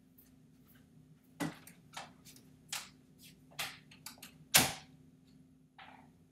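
A handful of sharp knocks and clicks at uneven spacing, with the loudest, deepest thump about four and a half seconds in, as someone gets up from a desk and moves off.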